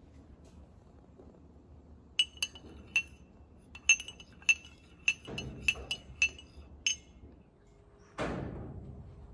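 A metal spoon clinking against a glass mug while stirring a drink: about a dozen sharp, ringing clinks over some five seconds. Near the end comes a short rushing noise that fades away.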